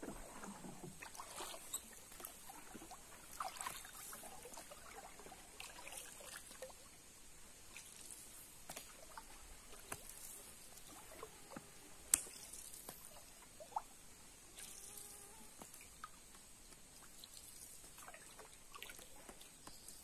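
Faint water dripping and trickling, with scattered small knocks and rustles around a canoe, over a steady high-pitched insect hum.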